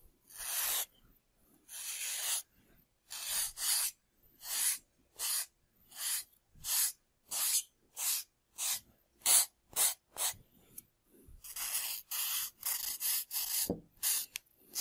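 Sandpaper being rubbed back and forth over a small model engine nacelle by hand: separate scratchy strokes, slow at first and then quickening to about two a second, with a longer unbroken stretch of rubbing near the end.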